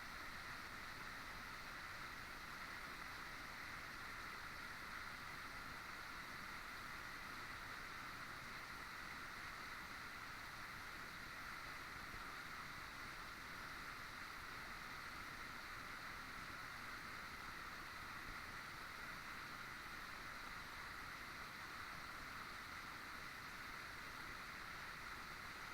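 A waterfall's falling water making a steady rushing noise.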